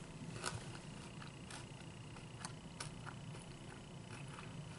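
Faint chewing of a mouthful of fried chicken finger, with soft, irregular mouth clicks.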